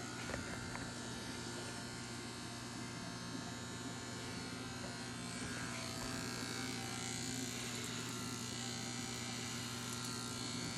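Electric hair clippers running with a steady buzz during a flattop cut, getting slightly louder about six seconds in.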